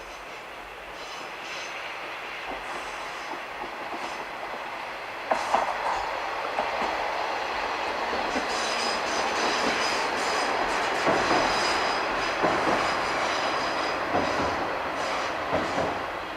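KiHa 120 diesel railcar approaching and running past, growing louder. From about five seconds in its wheels click sharply over the rail joints, and a thin high wheel squeal sounds through the second half.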